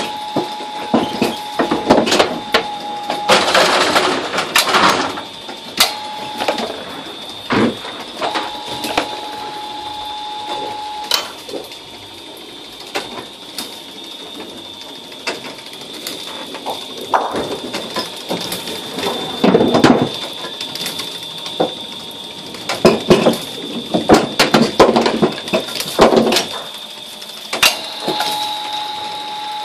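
String pinsetter of a skittle alley at work: its electric motor whines while cord spools reel the pins up and let them back down, with frequent clacks and knocks of pins and rattling of the mechanism. A lower hum starts and stops several times.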